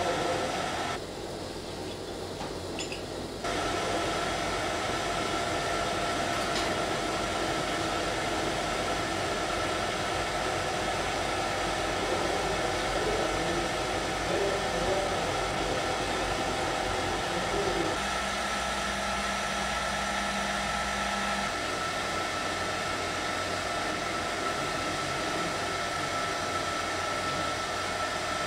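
Steady whir of machine-shop machinery such as a metal lathe running, a constant noise with a few fixed tones. The noise changes abruptly a few times.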